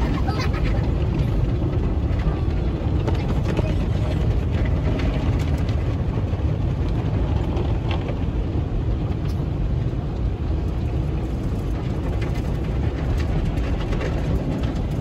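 Automatic car wash heard from inside the car: water spray and rotating cloth brushes working over the windshield and body make a loud, steady wash noise, heaviest in the low end. Sharp splashes and slaps come at scattered moments.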